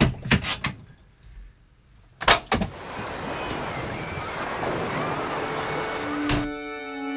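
Volkswagen bay-window bus cab: a few small clicks, then the driver's door latch and door clunk open twice about two and a half seconds in. Steady wind and sea surf follow, and a single door thud comes near the end.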